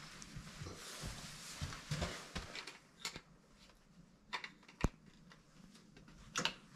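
Wall light switches clicking as they are pressed: about four short, sharp clicks spread over the last four seconds, the loudest about five seconds in, after a few seconds of soft rustling of clothing.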